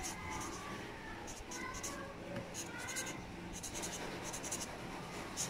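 Marker pen writing on a paper sticky note: a run of short, scratchy strokes, one after another.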